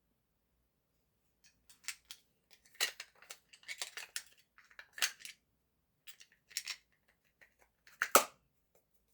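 Irregular metallic clicks and short scraping rasps from a Heritage Rough Rider .22 revolver being handled, starting about a second and a half in, with the loudest sharp click near the end.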